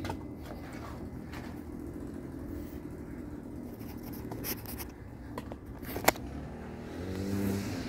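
Steady low mechanical hum with a sharp click about six seconds in.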